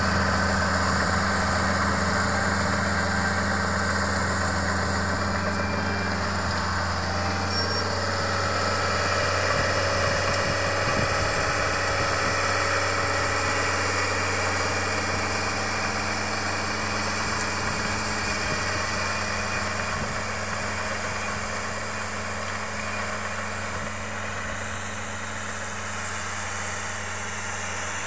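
Fiat 95-55 crawler tractor's diesel engine running steadily under load while pulling a two-furrow reversible plough through the soil. The sound grows slowly fainter as the tractor moves away.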